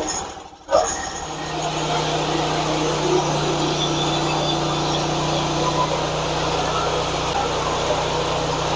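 Hud-Son portable band sawmill running steadily, its engine and band blade making a steady hum with hiss as it saws through a frozen, knotty hard maple log. The sound comes in about a second in, after a brief quiet gap.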